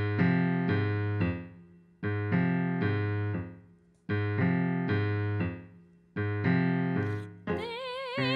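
Piano intro to a tango: chords struck in a repeating tango rhythm about every two seconds, each left to ring and fade. A wavering singing voice comes in near the end.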